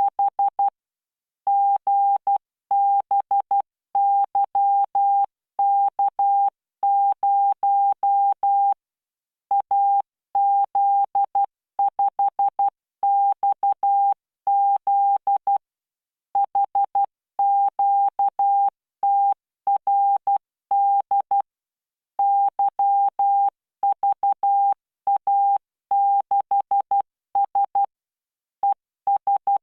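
Morse code sent at 12 words per minute as a single steady, mid-pitched beep tone, keyed into short dots and longer dashes. The characters are separated by short silences, with longer pauses between groups: computer-generated CW practice tone from Morse training software.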